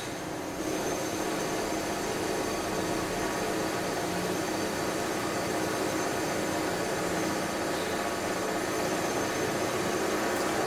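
Steady mechanical noise from construction work, an even rushing din with no distinct strokes, growing slightly louder toward the end.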